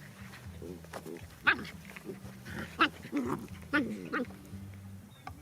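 A dog vocalising: three short, high yips, with lower wavering whines in between.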